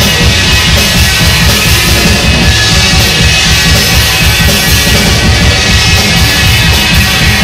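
Rock band playing an instrumental passage, with a drum kit keeping a steady beat under loud amplified instruments.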